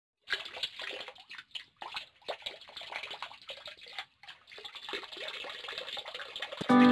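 Water splashing in irregular bursts with short gaps between them. Music with sustained chords comes in just before the end.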